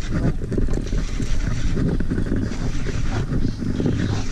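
Steady low rumble with irregular buffeting from wind on the microphone as the small boat drifts on the river.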